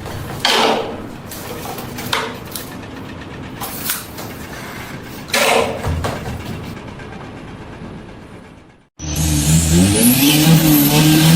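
A few short, sudden noisy knocks or scrapes over a rough background. Then, after an abrupt cut, a loud engine or motor runs up, its pitch rising for about a second and then holding steady.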